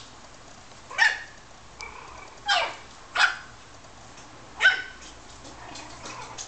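Maltese dog barking: four short, high-pitched barks at uneven intervals, with a fainter yelp between the first two.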